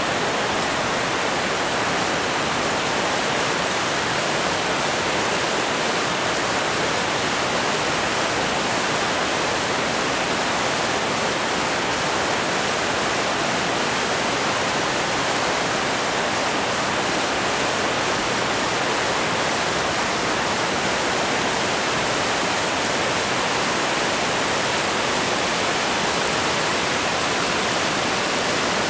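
Steady, unbroken rush of floodwater, an even hiss with no change for the whole stretch.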